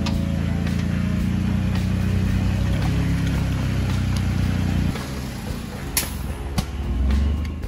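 Jeep Wrangler engine running under load as it crawls through a deep trail rut, easing off about five seconds in. A sharp click comes about a second later, and a short low surge of engine just before the end.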